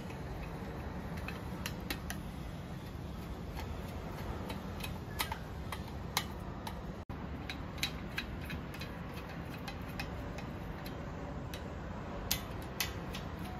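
Hand screwdriver driving a screw into a steel tube frame: scattered, irregular sharp metal clicks and ticks over a steady low hum.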